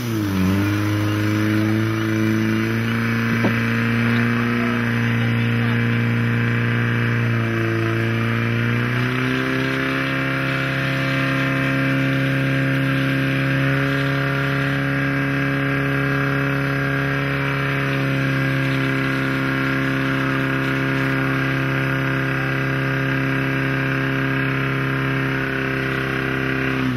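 Portable fire pump's engine running flat out, a loud steady drone that steps up a little in pitch about nine seconds in, while it feeds water through the hoses to the jets.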